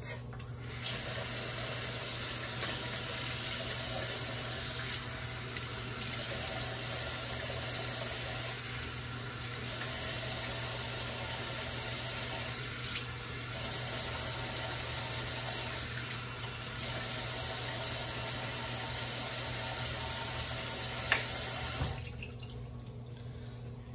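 Kitchen tap running steadily as warm water fills a measuring cup, the sound shifting slightly every few seconds. The flow stops near the end, just after a short click.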